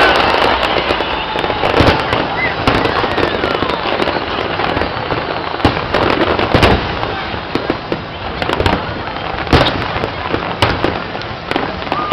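Fireworks display: a continuous run of irregular bangs and crackling pops, several louder reports standing out, with crowd voices underneath.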